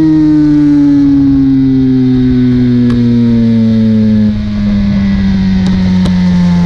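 BMW S1000RR's inline-four engine heard from the rider's seat, its note falling slowly and steadily as the revs drop from about 11,000 rpm while the bike slows, with wind rush under it.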